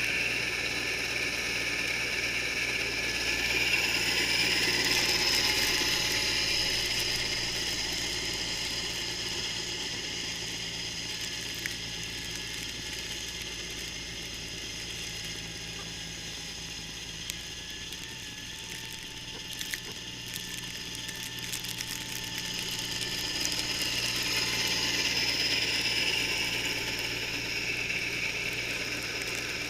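John Deere 318 garden tractor running with its Model 49 snowblower engaged, a steady mechanical run that swells louder and eases off again over the half minute as the machine works.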